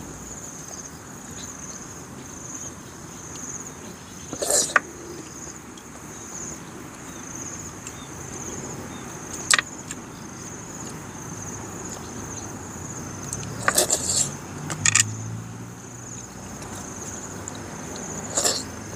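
Close-up eating sounds of cooked snails being sucked from their shells: five short, loud slurps and smacks, a few seconds apart. Behind them, a steady high insect trill.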